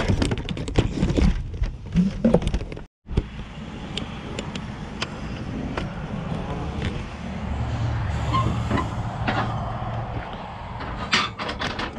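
A run of knocks, clicks and rattles from objects being handled. After a brief break comes a steady low engine rumble, strongest for a couple of seconds past the middle, then a few more sharp clicks near the end.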